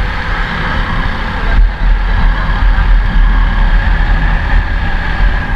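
Motorcycle running at riding speed, with wind rumbling on the microphone.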